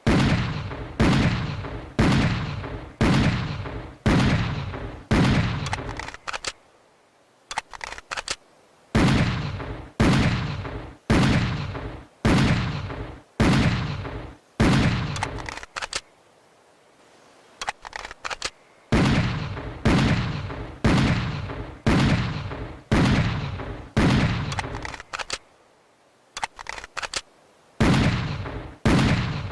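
Schofield .45 six-shot revolver firing single shots about one a second, each trailing off, in strings of about six to seven. Pauses of a few seconds between strings hold faint clicks.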